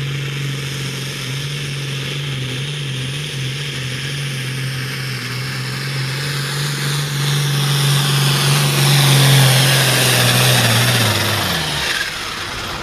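Hot farm class pulling tractor's diesel engine at full throttle hauling a weight sled, holding one steady note that grows louder toward the end of the run. About a second before the end the note falls in pitch and drops away as the engine comes off throttle at the end of the pull.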